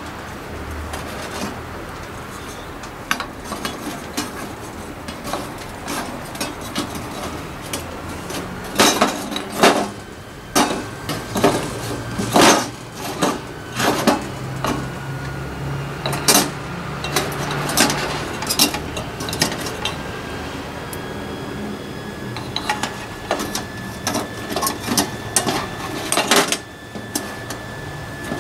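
Metal clinking and knocking as a brass alcohol stove, steel wire pot-support rods and a fuel bottle are handled and packed into a stainless steel windscreen ring, in irregular clusters of sharp knocks.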